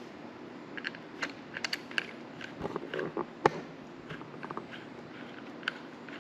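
Irregular light metallic clicks and taps from a driver with a 3 mm Allen bit as a bolt is tightened, with one sharper click about three and a half seconds in.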